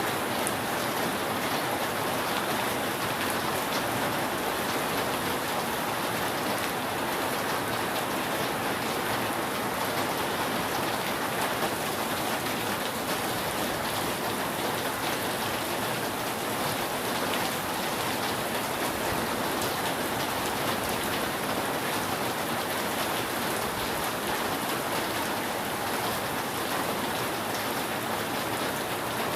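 Steady rain falling on a roof: an even, unbroken hiss of drops that holds the same level throughout.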